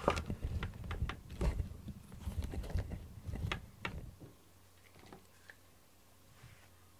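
Handling noise close to the microphone: irregular rustling, clicks and knocks with a low rumble, stopping about four seconds in and leaving quiet room tone.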